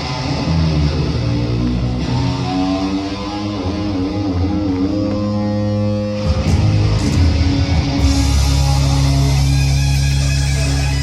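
Loud guitar-led rock music, with a wavering held guitar note around the middle and a heavier, fuller section from about eight seconds in.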